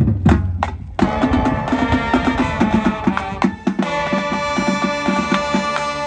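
Marching band playing: percussion strikes over a low held note, then about a second in the winds come in with loud held chords over the drum line's rhythmic hits.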